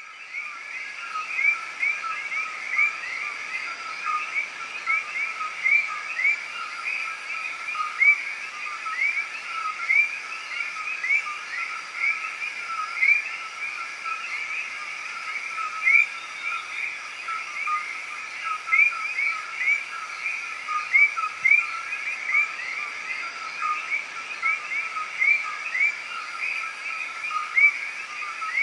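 A dense chorus of many small animals calling, each call a short rising chirp, overlapping in a steady stream at two pitches, one higher and one lower.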